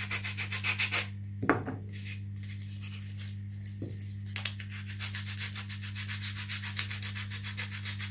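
Rapid, even rubbing strokes at the workbench over a steady low hum. They stop about a second in and pick up again around four and a half seconds.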